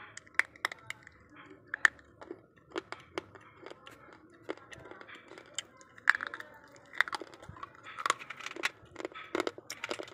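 Hard, brittle sun-dried pieces clicking and cracking as a hand moves and breaks them in a steel plate: a run of sharp, irregular clicks.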